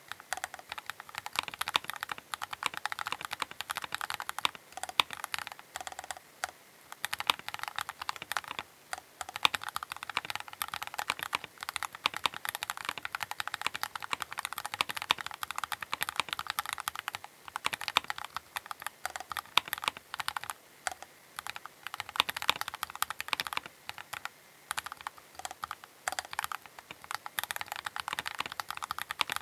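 Fast, continuous typing on a Keychron K8 Pro mechanical keyboard: a dense run of key clicks and clacks with a few short pauses between bursts.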